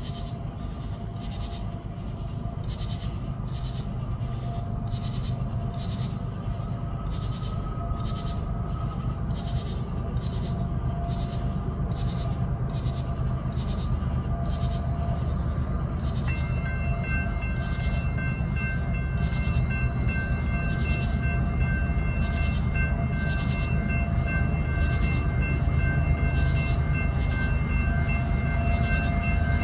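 CSX loaded coal train led by GE ES44AC-H and ET44AH diesel locomotives approaching up a grade in notch 8 (full throttle), its low engine rumble growing steadily louder. About halfway through, the lead locomotive's K5HL air horn starts and holds a steady chord, as it does for a road crossing.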